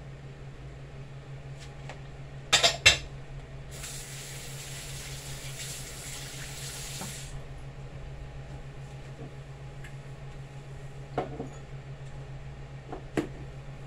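Dishes clattering at a kitchen sink, a glass plate among them, then the tap running for about three and a half seconds before it is turned off. A few light knocks follow near the end, over a steady low hum.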